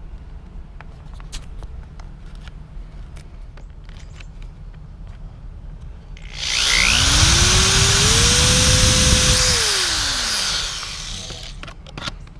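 Power drill boring a hole through a car's front lip: the motor spins up about six seconds in, runs loud for about three seconds, then winds down. A few faint clicks come before it.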